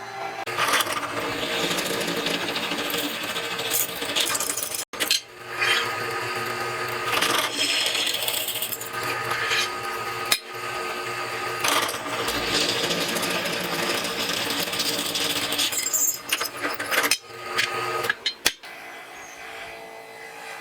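Power tool running under load with a harsh abrasive noise over a steady motor hum, in several short clips cut one after another.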